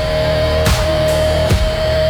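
Instrumental dark blues-rock music: a long held note over sustained low bass, with a slow drum beat hitting about once a second.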